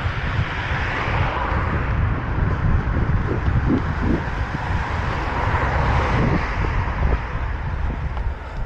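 Wind buffeting a moving runner's camera microphone, with the hiss of road traffic that swells twice as vehicles pass.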